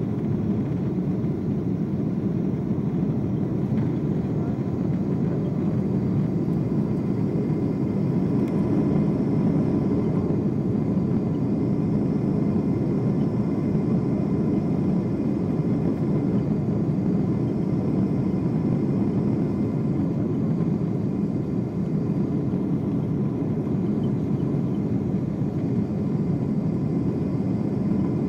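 Steady cabin noise inside a Boeing 747-8 on approach with its flaps extended: engine and airflow noise heard from a seat over the wing, mostly low, with a faint steady whine above it.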